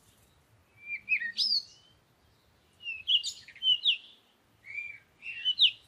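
A songbird singing: three phrases of quick chirps and whistled notes that slide up and down, with short pauses between them.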